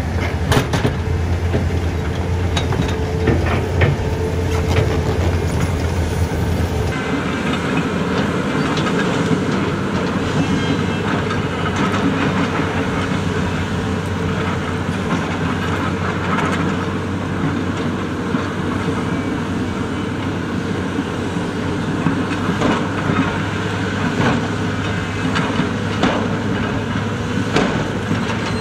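Large hydraulic excavator's diesel engine running steadily under load, with scattered clanks and knocks from the bucket and digging. The engine sound changes abruptly about seven seconds in.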